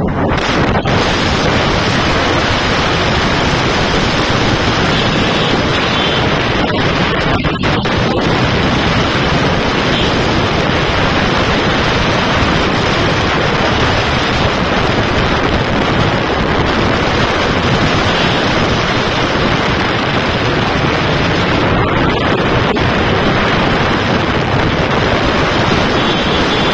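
Loud, steady rush of wind noise on the microphone of a moving motorbike.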